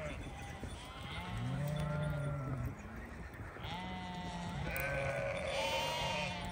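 A flock of sheep bleating: repeated, overlapping bleats of about a second each, some deep and some higher-pitched.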